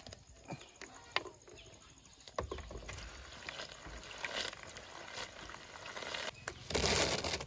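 June beetles being washed by hand in a basin of water: wet rustling and sloshing with sharp clicks of the beetles' hard shells. Near the end a handful is lifted out and falls back, making a louder splash and patter of water.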